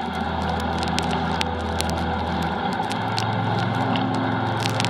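Wahoo Kickr smart trainer whirring steadily under pedalling, with a low hum that comes in at the start and steps up in pitch about halfway through, and scattered light clicks.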